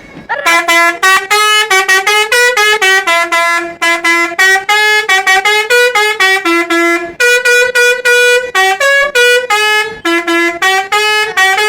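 Bus 'telolet' multi-tone musical horn playing a fast tune of short stepping notes, with a few brief breaks.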